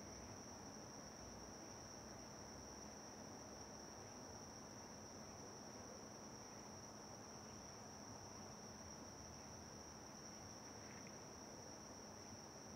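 Faint, steady high-pitched chirring of crickets, one even tone that runs on without a break, over a low background hiss.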